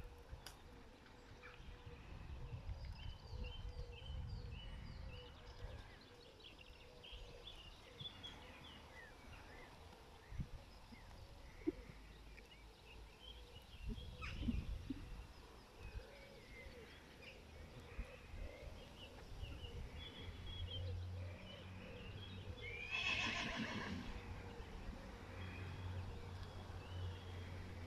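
A horse whinnies once, loudly, late on, a call of about a second and a half. Birds chirp faintly throughout.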